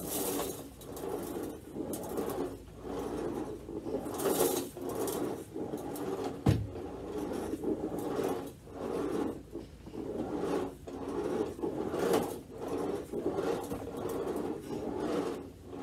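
Bissell Chicago Skyline manual carpet sweeper pushed back and forth over carpet, its brush roll rasping in repeated strokes as it picks up scattered minute rice. A single sharp knock comes about six and a half seconds in.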